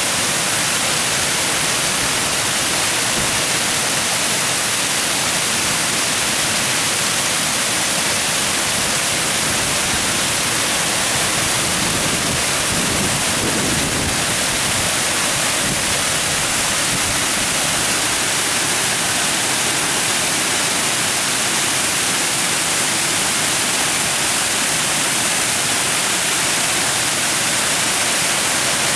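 Whitewater rushing over a stepped weir, a steady, unbroken hiss of falling and churning water.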